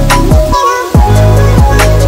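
Background music with a heavy beat: bass drum hits that drop in pitch about every two-thirds of a second over held bass notes and hi-hat ticks. The bass cuts out for a moment about half a second in, then the beat comes back.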